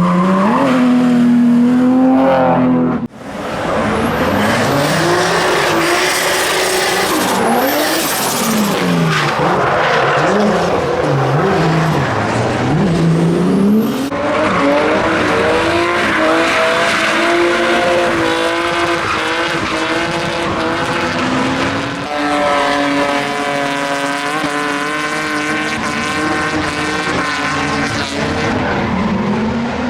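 Drift car engines revving hard, their pitch swinging up and down, over tyres squealing as the cars slide. The sound changes abruptly about three seconds in, again near the middle, and once more a little later.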